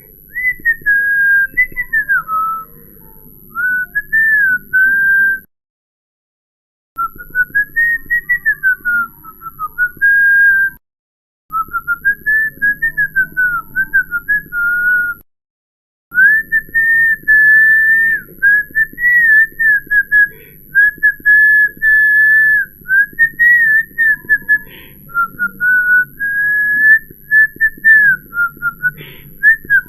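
A person whistling a wandering, tuneless melody of short rising and falling phrases at one fairly high pitch. The sound drops to dead silence three times, about 5, 11 and 15 seconds in, where the recording is cut.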